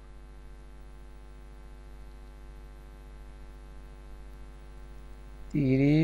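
Steady electrical mains hum with many overtones. About half a second before the end, a short, loud pitched electronic sound starts.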